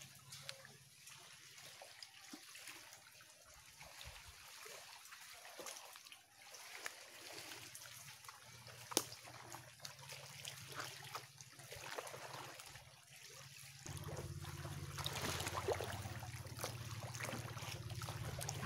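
Faint trickling and lapping of shallow seawater among shoreline rocks, with scattered small clicks and one sharp click about nine seconds in. About fourteen seconds in, the sound changes to a louder, steadier low noise.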